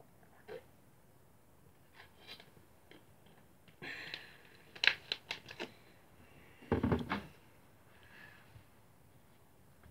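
Someone moving about close to a phone lying on the floor: a scatter of sharp clicks and knocks about four to six seconds in, then a heavier thud about seven seconds in.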